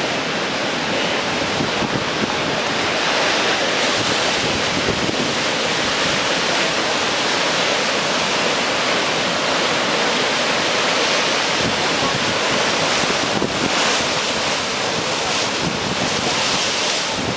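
Restless sea waves hitting a seawall, a continuous wash of surf that swells and eases slightly, with wind buffeting the microphone.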